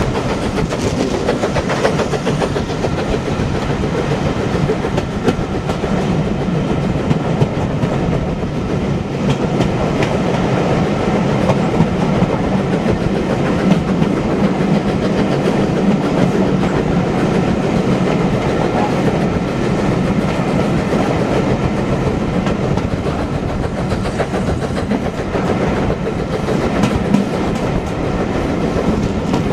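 Passenger train coaches running along the track, heard from an open carriage window: a steady rumble with clickety-clack knocks from the wheels.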